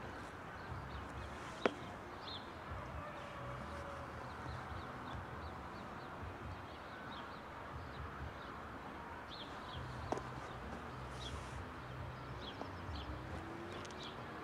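Small birds chirping again and again over faint outdoor background noise and a low uneven rumble, with two sharp clicks, about a second and a half in and about ten seconds in.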